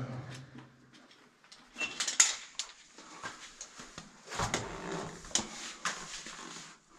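Metal rappelling gear clinking and scraping, with sharp knocks and rustles, as a caver starts down a rope. The clatter begins about two seconds in and comes in irregular bursts.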